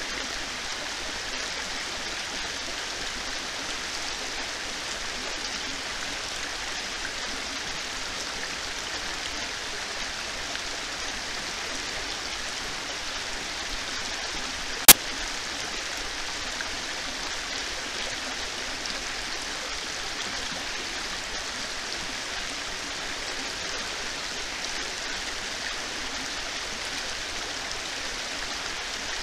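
Heavy rain falling, a steady even hiss. A single sharp click about halfway through stands out above it.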